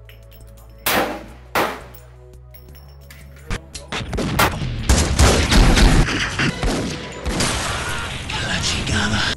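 Two shots from a Desert Eagle Mark XIX .44 Magnum pistol, about two-thirds of a second apart, a second or so in, each with a short ringing tail. From about four seconds in comes a loud, dense mix of rapid gunfire and music.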